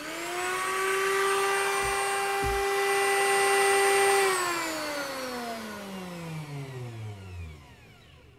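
An old Craftsman router mounted under a homemade table, switched by a foot pedal: its motor spins up to a steady high whine and runs for about four seconds. It is then switched off and coasts down, the whine falling steadily in pitch and fading, with two soft low knocks while it runs.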